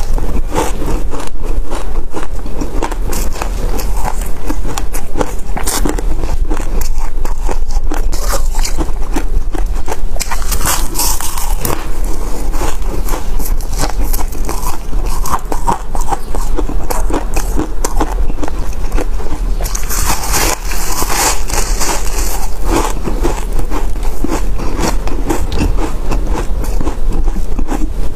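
Chunks of crumbly purple refrozen ice being bitten and chewed close to a lapel mic: a dense, continuous run of crisp crunches, with louder, crisper stretches about ten and about twenty seconds in.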